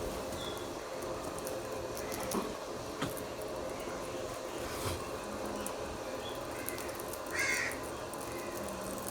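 Indian ringneck parrot giving one short, harsh squawk about seven seconds in, after a few sharp clicks, over a steady background hum.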